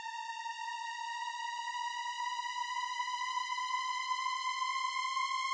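A single bright, buzzy synthesizer tone played back from the DAW, held without a break and slowly gliding upward in pitch while it grows louder.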